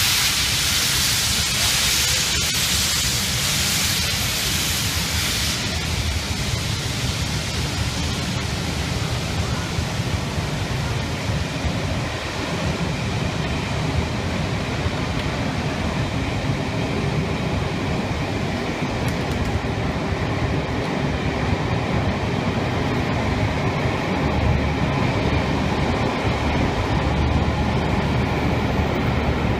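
Passenger coaches of a steam-hauled train rolling slowly past, their wheels giving a steady low rumble on the rails. A loud hiss of steam from the departing locomotive fades out about five seconds in.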